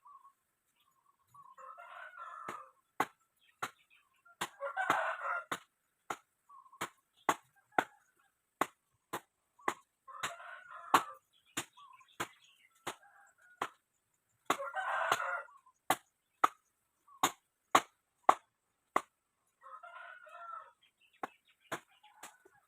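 A rooster crowing five times, roughly every four to five seconds, over a steady run of sharp clicks about two a second.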